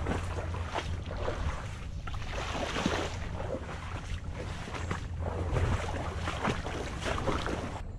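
Footsteps wading through shallow swamp water, sloshing and splashing irregularly with each stride.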